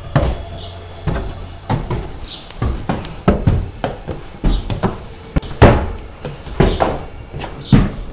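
Footsteps climbing wooden stairs: a run of heavy knocks on the treads, about two a second.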